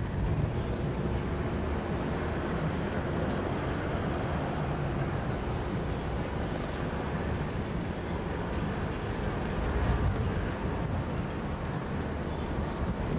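Steady outdoor background noise, a low rumble with hiss, with a faint high whine through the second half.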